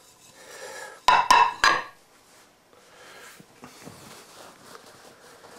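A ceramic plate clinking four times in quick succession with a short ring as it is set down and knocked against crockery, about a second in, followed by faint handling noise.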